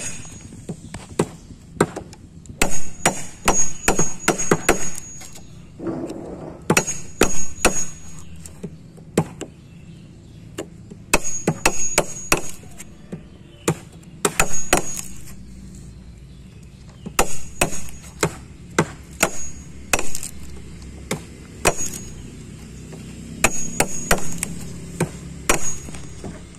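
A steel wood chisel is struck repeatedly with a hammer, cutting a notch in a hardwood block for a wood joint. The sharp taps come in quick runs of several strikes with pauses between, and many strikes carry a short high metallic ring.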